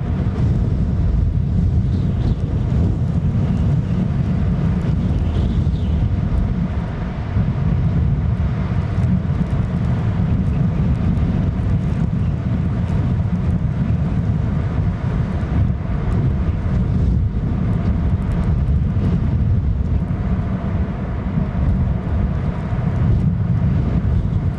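Strong gusting wind buffeting an outdoor camera microphone: a loud, steady low rumble that swells and dips with the gusts.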